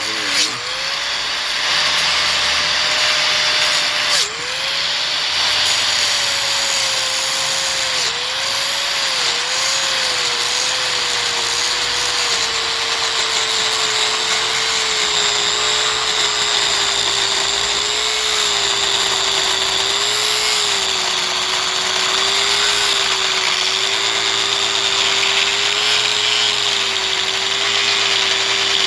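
Handheld power tool running continuously as it cuts into a plastic faucet water filter housing; its motor pitch dips each time the tool bites and recovers, and sags gradually lower under load, with a brief let-up and re-spin about four seconds in.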